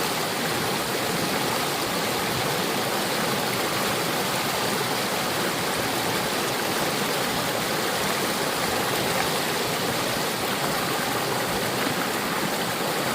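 Mountain valley stream rushing over rocks: a steady, unbroken water noise.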